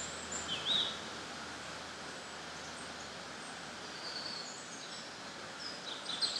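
Outdoor woodland ambience: a steady soft background hiss with scattered short, high bird chirps, a few near the start and a cluster near the end.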